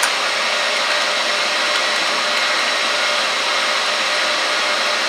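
Steady machine noise of brewery equipment running, an even whoosh with a few faint steady tones in it.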